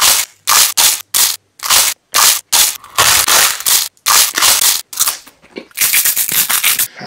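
Close-miked crunching of a giant spicy Dorito chip being bitten and chewed: about a dozen loud, sharp crunches at an uneven pace.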